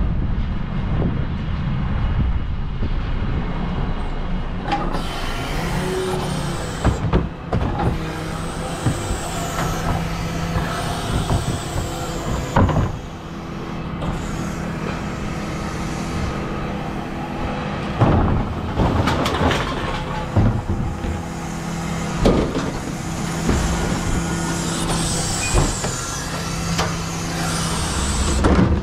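Dustcart's rear bin lift tipping a plastic wheelie bin, with the truck's engine running and the hydraulics working throughout. There are several sharp knocks and clanks as the bin hits the lift and the hopper, and some high falling hisses.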